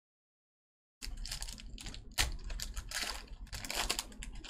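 Stiff Topps Chrome baseball cards being flipped and slid against each other by hand, making a quick, irregular run of clicks and taps that starts about a second in.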